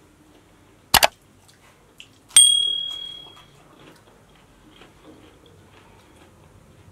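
Two quick sharp knocks, then a clink on tableware that rings out at one clear high pitch and fades over about a second, with faint eating sounds underneath.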